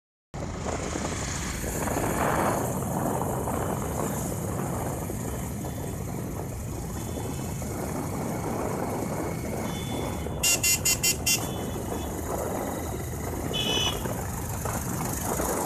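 Steady street traffic noise, with a high-pitched horn beeping five times in quick succession about ten seconds in and another short beep a few seconds later.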